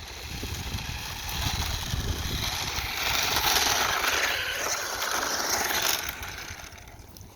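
Battery-powered toy RC car's electric motor and tyres running on pavement as a steady high whirring rush. It gets louder through the first half, is loudest in the middle, and fades away near the end.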